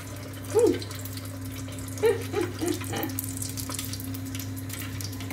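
Hot oil sizzling and crackling in a small saucepan as a cold salt-cod fritter is lowered in with a fork and fries.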